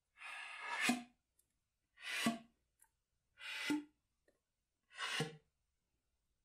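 Flute tongue rams, four times: a strong rush of air into the flute with the lips covering the embouchure hole, each cut off suddenly by the tongue and ending in a short, low pitched pop. The pops land on different notes.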